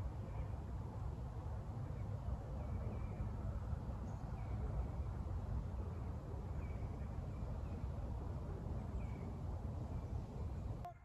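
Faint, distant hunting hounds baying now and then, short cries every second or two, over a steady low rumble.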